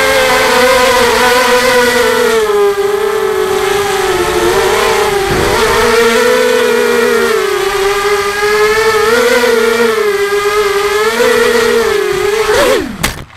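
FPV racing quadcopter's electric motors and propellers whining loudly, heard close up from its onboard camera, the pitch rising and falling with the throttle. Near the end the pitch drops sharply and the whine stops as the quad comes down and its motors spin down.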